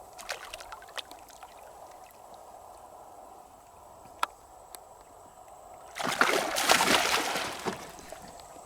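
Water sloshing and splashing for about two seconds, starting about six seconds in, after a quiet stretch with a few small clicks.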